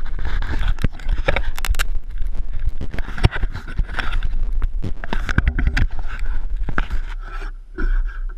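Handling noise on a GoPro camera: scraping, rubbing and irregular knocks on the housing, over a steady low rumble. It dies down near the end.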